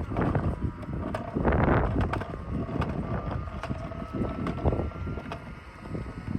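Wind buffeting the microphone in uneven gusts, over a faint, slowly rising motor whine and scattered small clicks.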